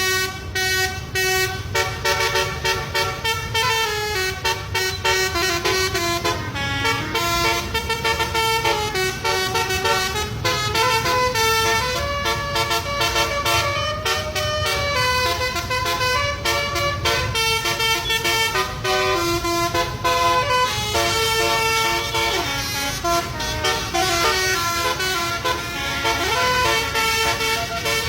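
Basuri multi-tone air horn of the kind fitted to Indonesian 'telolet' buses, playing a tune in stepping notes. A steady low rumble runs underneath.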